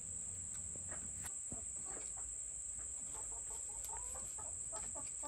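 Black Australorp chickens clucking faintly in short soft notes, with a few light clicks, over a steady high-pitched whine.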